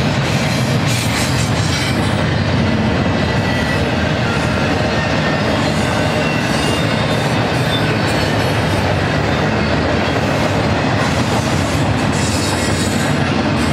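Double-stack intermodal freight train rolling steadily past: the rumble and clatter of the well cars' steel wheels on the rails, with a faint wheel squeal at times.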